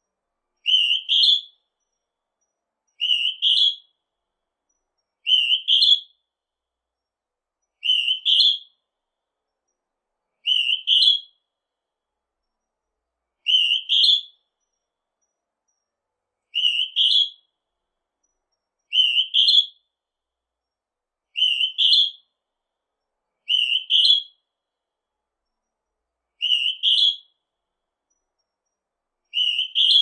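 Northern hawk-cuckoo calling: a shrill two-note whistle, rising in pitch, repeated twelve times about every two and a half seconds.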